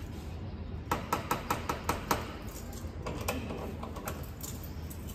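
Knuckles rapping on a wooden apartment door in a quick run of about eight knocks over a second, followed by a few fainter clicks.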